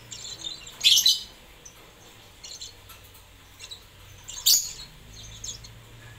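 Lovebird chirping in short, sharp, high-pitched calls: a loud double chirp about a second in, a loud chirp at about four and a half seconds, and softer chirps in between.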